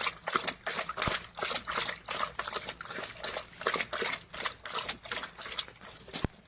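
Water splashing and dripping in quick, irregular wet strokes, several a second, ending just before the close.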